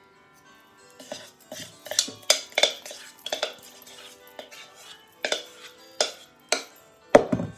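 A metal spoon clinking and scraping against a mixing bowl in a run of sharp knocks, the loudest one near the end, over background music.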